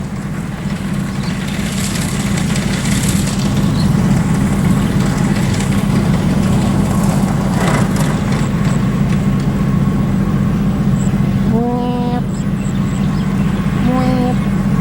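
Rice combine harvester's diesel engine and threshing machinery running steadily and loudly, heard from on board the machine.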